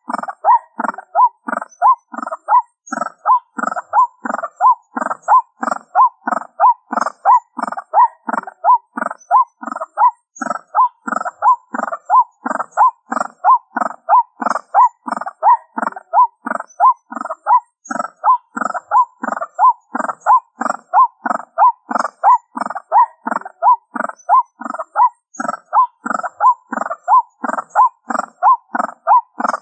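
White-breasted waterhen calls, a short note repeated in a steady, unbroken series of two or more a second, played as a lure through a small portable speaker.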